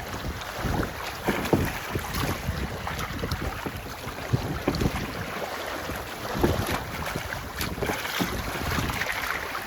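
Wind buffeting the microphone in uneven gusts, over the wash of water along a sailboat's hull.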